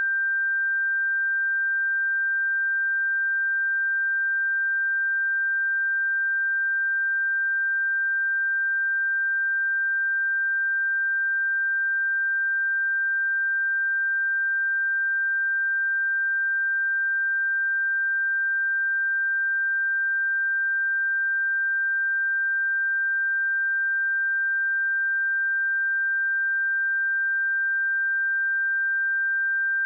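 A steady 1575 Hz sine-wave test tone: one pure, unchanging high tone at constant loudness.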